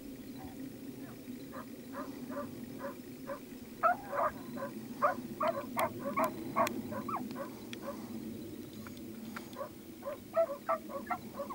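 Many short animal calls, several a second, loudest and densest in the middle, over a steady low background noise.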